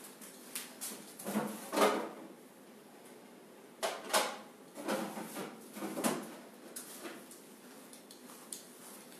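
A few knocks and clatters from a derma roller's plastic case being set into a UV germicidal cabinet and the cabinet being shut. The loudest come about two and four seconds in.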